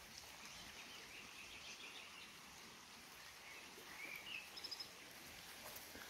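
Small songbirds chirping faintly over a steady hiss of flowing water. A short rising call comes about two-thirds of the way through, followed at once by a quick run of high notes.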